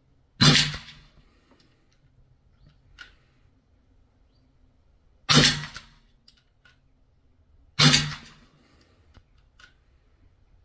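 Sig Sauer MCX Rattler CO2 air rifle firing .177 pellets: three sharp shots, about half a second in, about five seconds in and again two and a half seconds later, each fading quickly.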